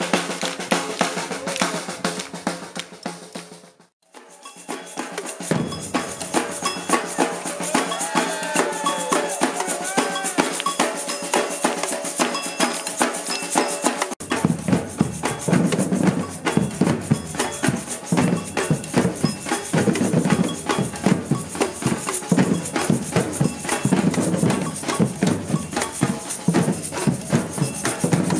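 Batucada drum group playing surdo bass drums and snare drums in a driving samba rhythm. The playing breaks off briefly about four seconds in and resumes lighter, and the deep surdo bass drums come back in strongly about halfway through.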